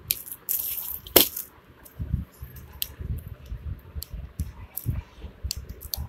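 Plastic clicks, taps and rattling from a pink plastic toy princess diary being handled and fiddled with: a short rubbing scrape about half a second in, one sharp click just after a second, then scattered lighter clicks and knocks.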